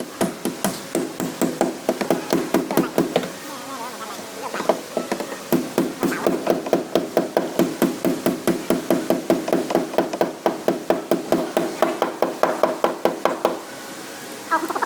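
Body hammer beating out a dented sheet-metal rear fender on a Mercedes E200: quick runs of ringing metal strikes, about four a second, with a short lull around four seconds in, stopping near the end.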